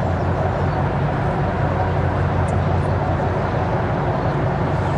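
Ship's engine droning steadily in a low hum, under a broad rushing noise on the open deck.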